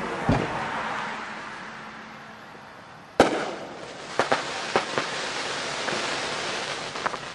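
Fireworks going off: a bang just after the start, a louder bang about three seconds in, then several sharp pops and cracks over a steady hiss.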